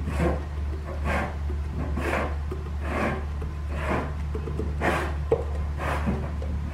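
Rubbing scrape about once a second as a 47RE direct clutch apply piston is worked down into its drum by hand, its new lip seals dragging on the bore. There is a small click about five seconds in, over a steady low hum.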